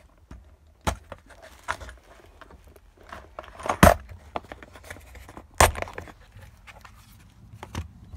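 Small hardware being rummaged through: plastic organizer boxes knocking and small metal clevis pins rattling, a series of sharp clicks and knocks, the loudest about four seconds in.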